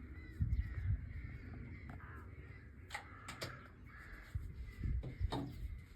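A few harsh, crow-like bird calls, about three seconds in and again near the end, over an irregular low rumble.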